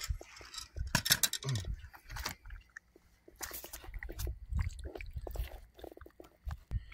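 A freshly caught catfish flopping in a mesh landing net on concrete: irregular knocks, taps and rustling of the net.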